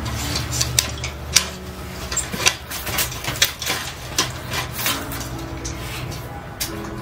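Irregular sharp clicks and light knocks, several a second.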